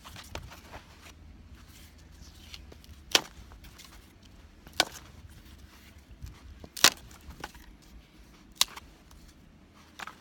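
Four sharp knocks or cracks, about one and a half to two seconds apart, over a faint outdoor background.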